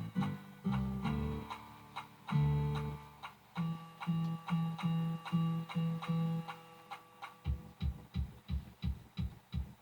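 Instrumental break in a song: plucked, guitar-like notes repeating in a steady beat, turning to quicker low notes near the end.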